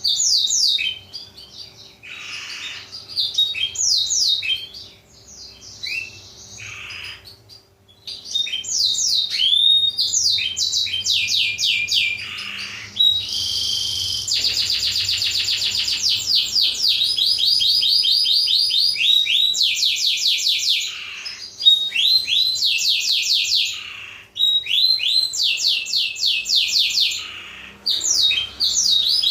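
Black-throated canary (blackthroat) song: fast runs of repeated sweeping whistled notes and trills, with a buzzy stretch about halfway through, broken by short pauses.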